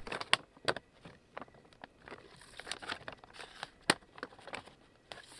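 Plastic trap parts being handled: the pegs of the panels clicked into the loops of a Japanese beetle trap's entrance, with the crinkle of the plastic bag and a few sharp snaps, the sharpest about four seconds in.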